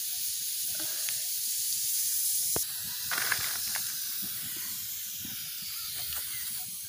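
Steady hiss with a few faint crackles and knocks, from a bamboo tube of egg and spices heating at the mouth of a wood-fired mud stove.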